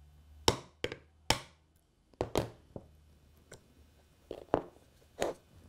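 A small hammer tapping a 2 mm pin punch to drive out the centre pin of a Hornby Ringfield loco motor: about five sharp taps in the first two and a half seconds, then several spaced knocks and clicks as the loosened motor parts are handled.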